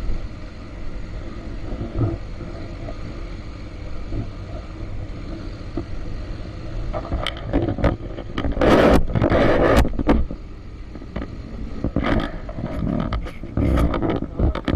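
Motorcycle engine running under load as it climbs a rough, stony track, a steady low rumble. From about seven to ten seconds in, loud rough noise and sharp rattles rise over it.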